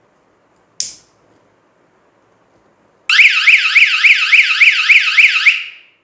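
A sharp click about a second in, then a relay-switched 12-volt high-beep alarm module sounds a loud warbling wail, its pitch sweeping up and down about three or four times a second with a tick on each sweep, for about two and a half seconds before dying away. The Arduino flame sensor has detected the flame and the alarm is timed to stay on for 3 seconds.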